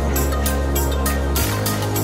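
Background music with a steady beat and a deep, sustained bass; the bass note changes about one and a half seconds in.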